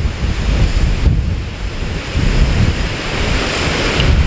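Strong wind buffeting the microphone in uneven gusts, over a steady rushing hiss of the rain-swollen waterfall below.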